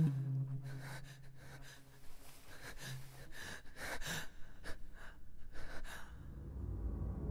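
A person breathing hard in short gasps, about two or three breaths a second, that stop about six seconds in as a low drone rises.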